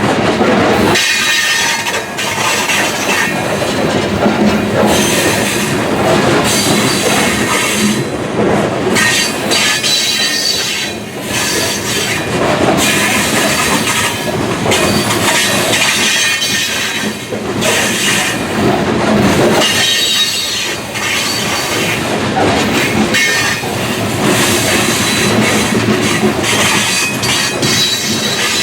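Freight train wagons rolling past close by, a continuous loud rumble and clatter of wheels on rail with faint, intermittent wheel squeal.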